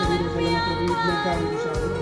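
Music with a singing voice over a steady bass and beat.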